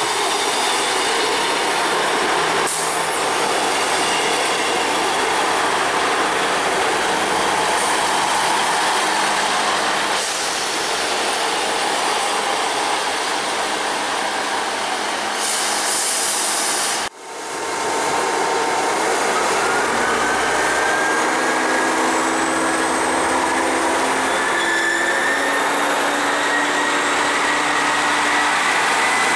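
GWR Class 158 diesel multiple unit running along the platform with loud wheel-on-rail noise. After a sudden break about seventeen seconds in, a Class 158 pulls away, its engine note and a high whine rising steadily in pitch as it gathers speed.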